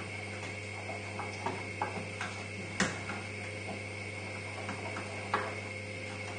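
A wire whisk stirring melting cheese into sauce in a saucepan, with a handful of light clicks and taps of the whisk against the pan, the loudest a little before three seconds in. A steady low hum runs underneath.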